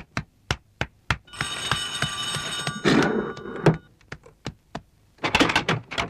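An electric doorbell ringing loudly for about two seconds over steady ticking at about three ticks a second, then a quick run of knocks near the end.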